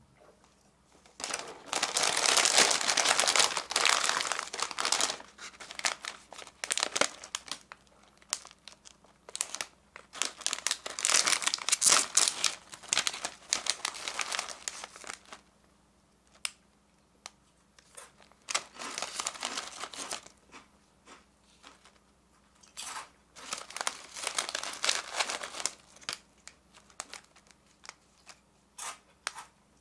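Plastic and foil snack wrappers crinkling as they are handled, in several loud bursts with scattered small crackles between, as a small foil-lined potato-snack bag is torn open.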